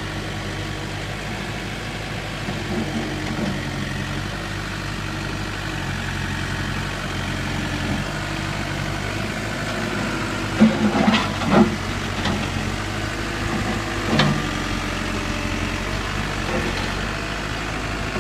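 2008 Case 580 Super M backhoe's diesel engine running steadily. A few sharp knocks come about ten to twelve seconds in, and once more around fourteen seconds.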